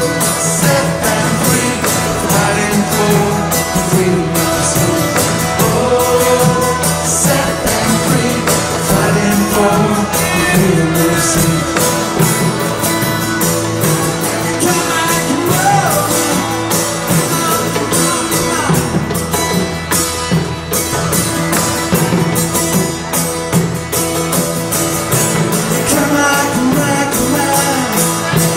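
Live band music: strummed acoustic guitar over a steady, driving hand-percussion beat with tambourine, and singing above it.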